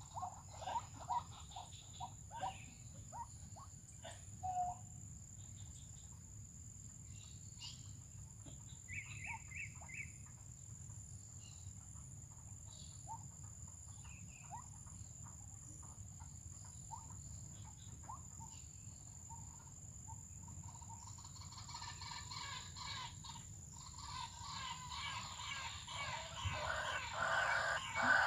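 White-breasted waterhen (ruak-ruak) calling: a run of short repeated notes in the first few seconds, scattered chirps, then rapid repeated calls that build and grow loud near the end. A steady high insect whine runs underneath.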